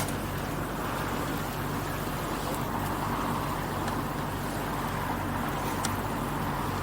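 Motorboat engine running steadily at cruising speed, with the rush of water and wind as the boat moves along.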